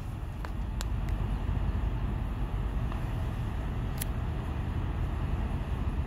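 Steady low outdoor rumble with a few faint short clicks, the loudest about four seconds in.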